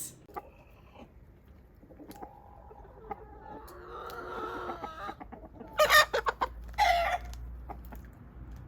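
Chickens clucking, with a rooster crowing in one long call from about two seconds in. Two loud runs of short, sharp clucks come about six and seven seconds in.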